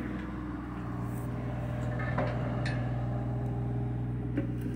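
Diesel engine of a John Deere mini excavator running steadily as a low, even drone, with a couple of faint clicks about halfway through.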